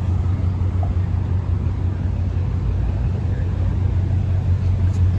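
A motor vehicle's engine running steadily at idle, a constant low rumble.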